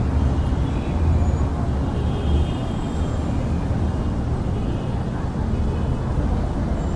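Steady low rumble of vehicle traffic, with faint thin higher tones over it.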